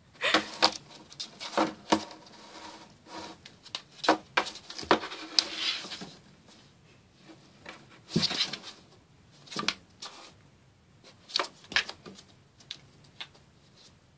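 A cat's claws and paws scratching and scrabbling on a cardboard box as it plays with yarn: irregular scrapes and taps, busiest in the first half, with a quieter spell around the middle.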